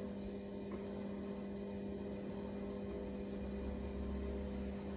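Power feed unit on a mill-drill, its motor running at its slowest setting to drive the table: a steady hum.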